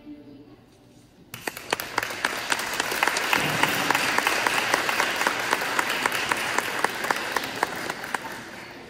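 Audience applause. There is a short hush as the music stops, then clapping breaks out about a second in, builds, and tapers off near the end.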